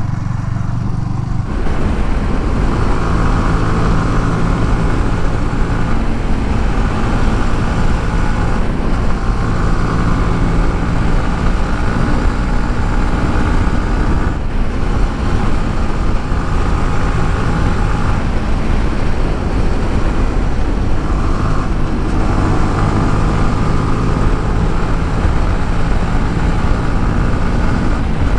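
Motorcycle engine running steadily at road speed with a rush of wind noise, the engine note easing off briefly a few times.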